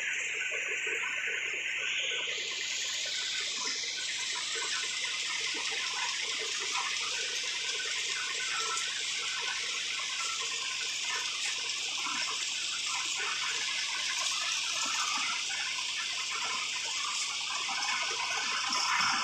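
Steady rushing water: a continuous hiss with no breaks.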